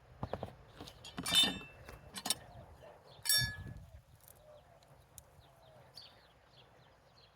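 Metal digging tool striking and scraping in the soil, with a few sharp clinks. The two loudest, about a second in and about three seconds in, ring briefly. Small birds chirp faintly in the background.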